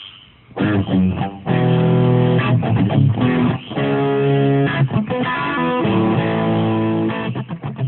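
Intro music: loud electric guitar and bass chords with sharp strums, starting about half a second in after a few faint frog croaks.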